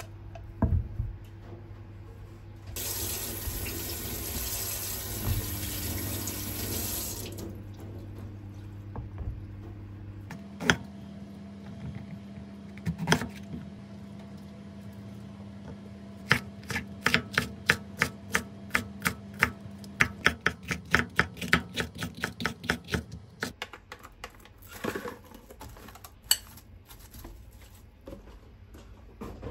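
Kitchen tap running for about four seconds. Then a Global chef's knife chops green peppers on a round wooden cutting board, in quick even strokes of about four a second for some seven seconds, over a low steady hum.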